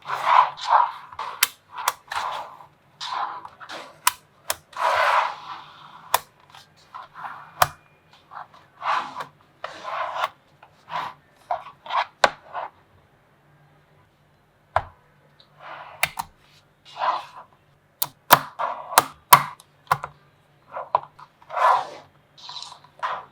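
Small magnetic balls snapping together with sharp, irregular clicks and short clattering rattles, with a pause of about two seconds past the middle.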